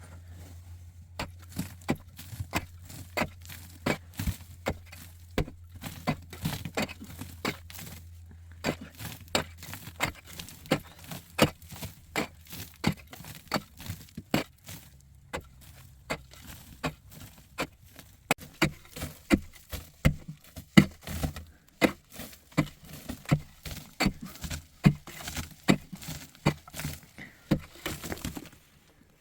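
A long run of sharp chopping or knocking strikes, about two a second, getting louder in the second half, over a low hum that stops about eight seconds in.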